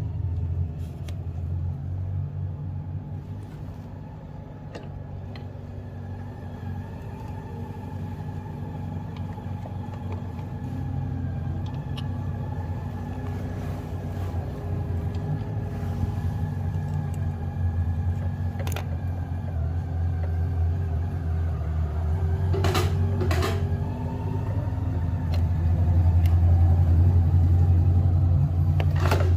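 A steady low engine-like hum that grows louder over the last few seconds, with a few sharp metal clicks, briefly clustered about two-thirds of the way through.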